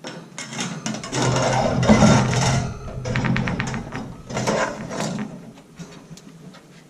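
Chrome welded-wire shelf clattering and scraping against the metal poles and plastic couplers as it is fitted on, with a quick run of rattling clicks about three seconds in.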